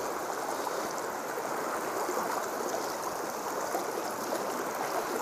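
Shallow, clear river flowing over a stony bed: a steady rushing of water.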